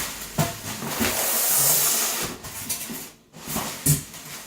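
Packaging rustling and crinkling as it is scrunched and cleared away, a dense rustle for about two seconds, then quieter handling with a few knocks.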